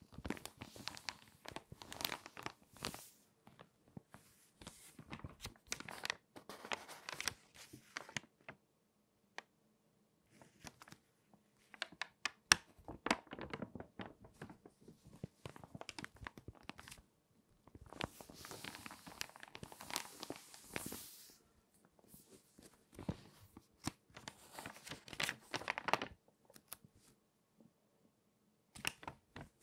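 Stiff, crinkly pages of water-damaged magazines crackling and rustling as they are turned and handled, in irregular bursts with a couple of brief pauses.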